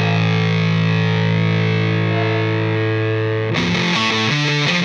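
Background rock music with a distorted electric guitar: a long held chord, then about three and a half seconds in a quick run of short, rhythmic notes.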